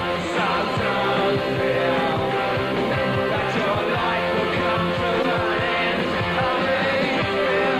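A recorded rock song played by a full band, with a steady drum beat under sustained guitar chords.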